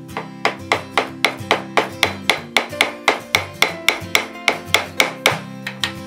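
Light hammer taps on a screwdriver, about four a second, driving a metal ring further down onto the cracked plastic shaft of a microwave timer knob; the taps stop near the end. Acoustic guitar background music plays underneath.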